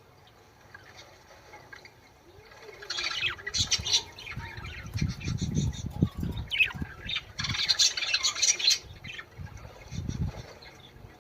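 Budgerigars chattering and warbling in bursts of rapid high chirps and squawks, about three seconds in and again around seven to nine seconds, with some low thumps in between.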